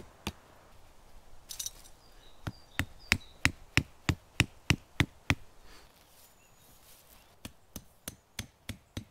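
Tent stakes being knocked into the ground with a hand-held rock: a run of about ten sharp strikes, roughly three a second, then after a pause about six more near the end.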